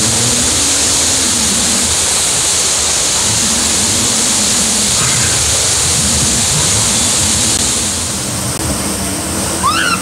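Water rushing steadily over a man-made rock cascade, a loud even hiss, easing slightly about eight seconds in. A brief high rising chirp near the end.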